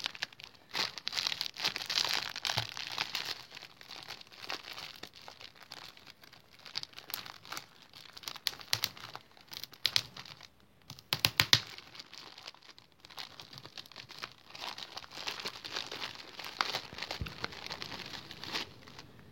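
Yarn packaging crinkling and rustling as it is handled and pulled open, on and off with short pauses and a few sharper crackles.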